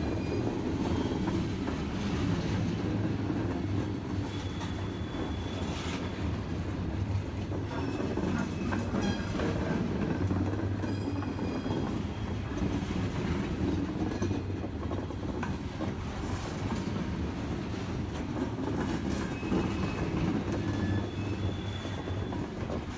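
Loaded coal hopper cars of a freight train rolling past close by: a steady rumble of wheels on rail with clicking over the joints, and a few brief high wheel squeals.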